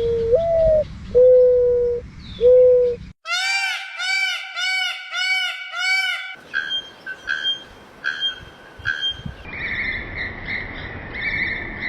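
A series of different bird calls joined by abrupt cuts. First come low, held hooting notes, one of them rising. Then a run of repeated arching notes, about two a second. From about six seconds in, higher, shorter calls repeat over a hiss.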